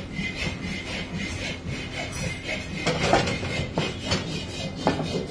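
Scraping and rubbing as pan-casting mould parts are handled and fitted together, with several sharp knocks in the second half.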